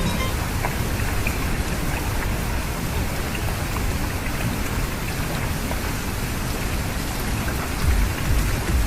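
Steady rain falling: an even hiss with scattered drop ticks, and a brief low swell near the end.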